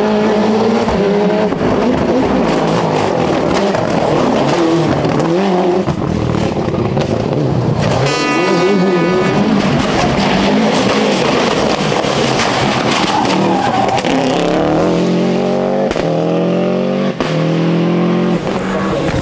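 Group A rally cars (a Toyota Celica GT-Four and Subaru Imprezas) driven flat out on a tarmac stage: turbocharged four-cylinder engines revving up and down between corners and gear changes. There is a brief high squeal about eight seconds in, and near the end an engine climbs in pitch through several upshifts.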